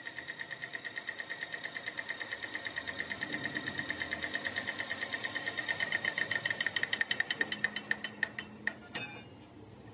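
Metal lathe turning the welded section of a splined truck driveshaft: a high-pitched squeal from the cutting tool on the spinning steel, pulsing several times a second. It grows louder, then stops about nine seconds in.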